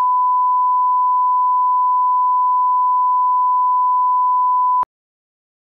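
Steady 1 kHz broadcast line-up tone, the reference tone run with colour bars for setting audio levels. It holds one unchanging pitch and cuts off suddenly about a second before the end.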